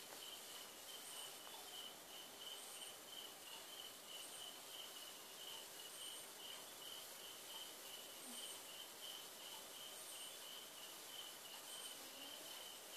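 Faint, steady trilling of crickets, with a shorter, higher chirp repeating every second or two.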